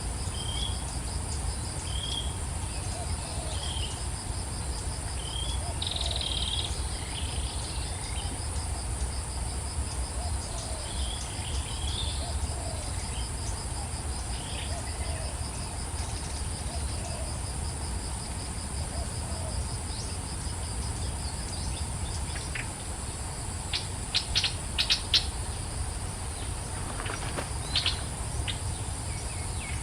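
Insects buzzing steadily at a high pitch, with a second pulsing insect trill beneath, while a bird gives short chirps about once a second through the first half. A few sharp clicks come in a quick cluster about two-thirds of the way in, over a low background rumble.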